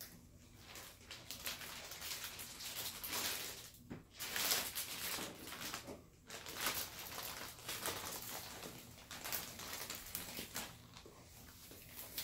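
Large plastic zipper storage bag rustling and crinkling in irregular bursts as a seasoned brisket is slid into it and the bag is handled and sealed, loudest about four seconds in.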